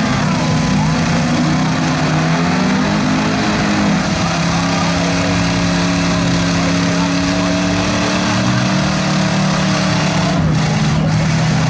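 Off-road vehicle engine running at a steady pitch that shifts slightly about four seconds in.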